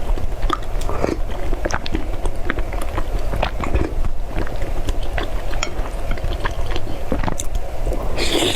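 Close-miked chewing of soft, sticky mochi: irregular wet mouth clicks and smacks over a steady low hum, with a brief louder smack near the end.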